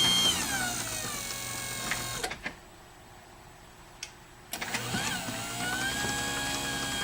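Craftsman garage door opener converted to a side-mount jackshaft operator: its motor whine glides down as it slows to a soft stop, then a click and about two seconds of quiet. A click, and the motor starts again, its whine rising and settling into a steady, lower hum as it drives the door.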